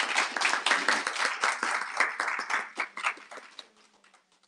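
Audience applauding, the clapping thinning out to a few last claps and stopping near the end.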